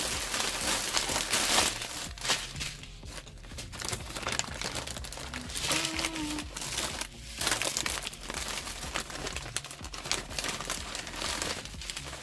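Plastic bags of polystyrene beads crinkling and rustling as they are handled and opened, in irregular uneven swells.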